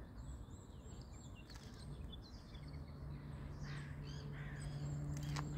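Birds calling around a pond, many short high chirps scattered throughout, over a low rumble. A steady low hum sets in about halfway through and grows louder toward the end.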